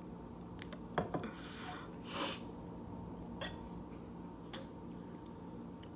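Quiet sounds of a can of sparkling water being handled and drunk from: a sharp click about a second in, then two short breathy hisses of a sip and an exhale, and a couple of light taps later.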